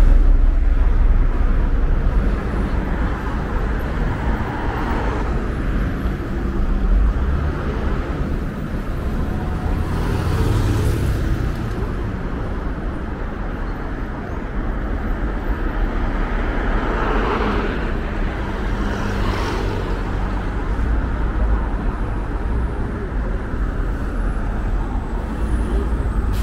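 City road traffic: a steady rumble of car engines and tyres, with vehicles swelling past about ten seconds in and again around seventeen to nineteen seconds.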